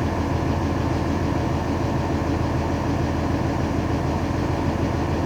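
Mercedes-Benz OM-366LA six-cylinder turbodiesel of an OF-1721 city bus, running steadily with no change in pitch.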